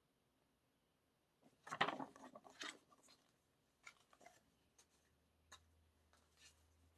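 Paper and card album inclusions being handled: a burst of rustling and crinkling about a second and a half in, then a few soft scattered clicks.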